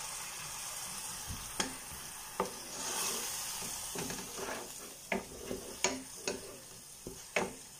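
Curry masala sizzling in oil in a steel pan while a wooden spatula stirs it, knocking and scraping against the pan about half a dozen times.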